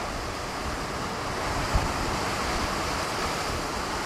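Ocean surf washing against a rocky shore, a steady rush that swells slightly partway through. There is a brief low bump of wind on the microphone.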